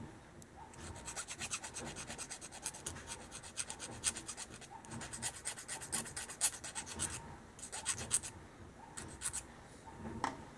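Needle file scraping in quick, short, repeated strokes across a small cut piece of aluminum tubing, smoothing off the sharp edge. The strokes come in dense runs with a brief pause about halfway, then thin out to a few scattered strokes near the end.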